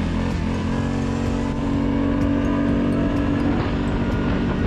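CF Moto 520L ATV's single-cylinder engine running under way. Its pitch bends at first, holds steady for a few seconds, then drops slightly near the end.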